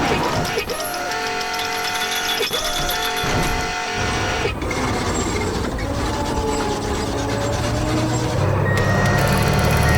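Cartoon construction-vehicle engine sound effect, a low steady rumble that comes in about four seconds in and grows louder near the end. Before it come gliding, whistle-like cartoon tones.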